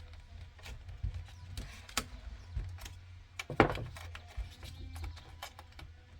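Small clicks and handling knocks of plastic steering-wheel parts as the paddle-shifter wiring clip is worked at, with one louder knock about halfway through, over a low steady hum.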